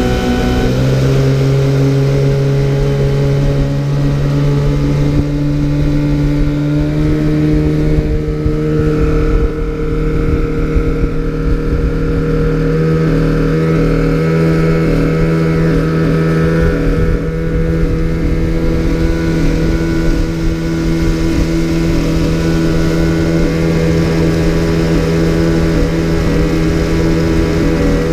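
Small outboard motor running steadily at cruising speed, driving a small boat across a lake, its engine note holding even throughout.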